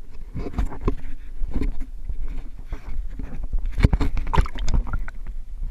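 Knocks and bumps on an aluminium boat hull as a caught largemouth bass is handled, with the camera itself being jostled. Several sharp knocks, the loudest a little under a second apart near the middle, over a steady low rumble.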